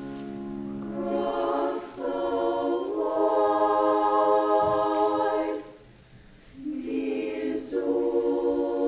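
High-school treble choir of women's voices singing sustained chords together. About two-thirds of the way through the singing stops for roughly a second, then the choir comes back in.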